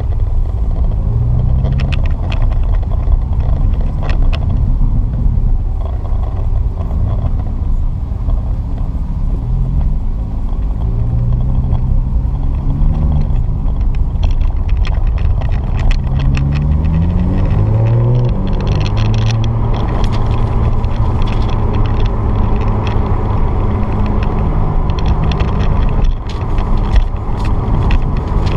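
Porsche 911 GTS flat-six engine and road rumble heard from inside the cabin while driving. The engine note rises and falls with the throttle, climbs steadily through the revs in the middle, then holds a steady note near the end.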